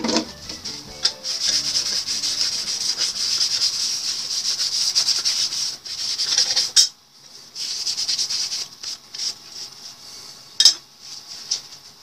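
A cloth rubbing briskly over the metal plate of a Yale lock, wiping it down with isopropyl alcohol, for about seven seconds. Then lighter, broken wiping follows, with one sharp knock about ten and a half seconds in.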